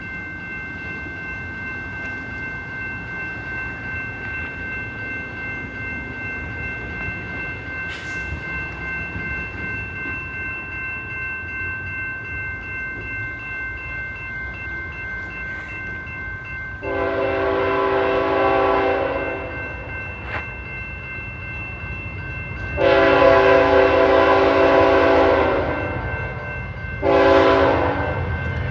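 Locomotive air horn sounding the grade-crossing signal as a train approaches: two long blasts, then a short one, over a low rumble of the train. Before the horn, steady high ringing tones sound.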